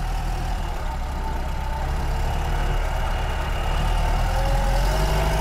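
Car engine fitted with a stack of five heavy flywheels, running at low revs and heard from inside the cabin as a steady low drone. The drone grows slightly louder, and a faint whine rises in pitch near the end.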